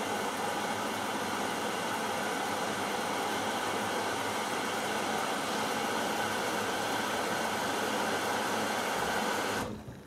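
Hoover Dynamic Next washing machine filling with water during the prewash, a steady loud rush of water through the inlet that cuts off suddenly near the end.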